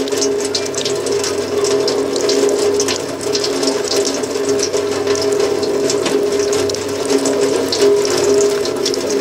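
Sustained electronic drone of several steady held tones, with a dense crackling, clicking texture over it, of the kind used as an experimental noise soundscape.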